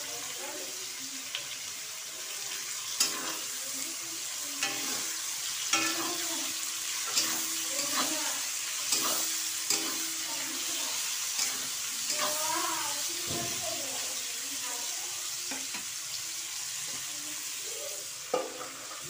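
Sliced onions sizzling in hot oil in an aluminium kadhai, with a spatula scraping and knocking against the pan as they are stirred, about once a second for a stretch. Near the end a metal lid clanks onto the pan.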